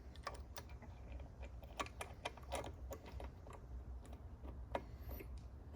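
Light, irregular clicks and taps of small steel transmission parts being handled and fitted by hand, as a detent arm is mounted beneath a shift fork.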